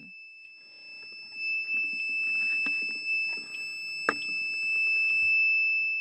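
A steady, high-pitched electronic buzzer tone that holds one pitch, with a single sharp click about four seconds in.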